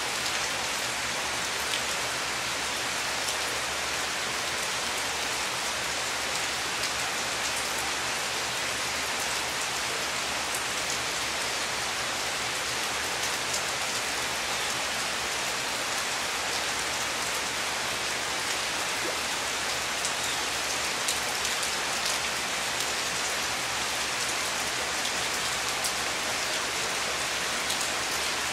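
Heavy tropical rain falling steadily on dense rainforest foliage and roofs, an even rushing hiss with scattered close drop hits.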